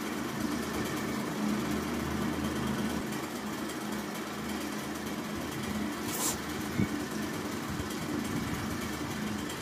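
A steady low machine hum over an even hiss, with a short burst of hiss about six seconds in.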